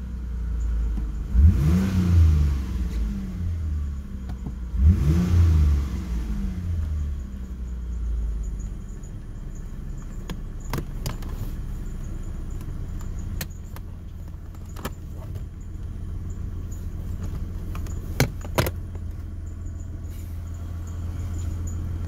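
1996 Mitsubishi 3000GT's 3.0-litre V6 revved twice, each rev rising then falling in pitch, then settling into a steady low idle, heard from inside the cabin. A few sharp clicks sound later on.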